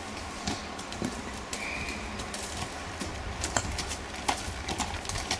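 A ridden horse's hooves striking a dirt arena: irregular dull thuds and sharper clicks, coming more often in the second half, over a steady low rumble.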